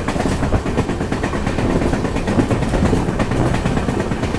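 Passenger train running along the line, heard from the open coach door: a steady loud rush of running and wind noise with irregular rail clicks and clatter.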